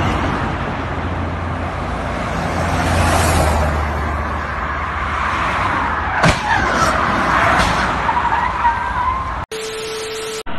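Highway traffic noise with a steady engine hum. About six seconds in comes a sharp crash impact, followed by clatter and a wavering tyre squeal. Near the end, a short burst of TV static with a steady beep is heard as a transition effect.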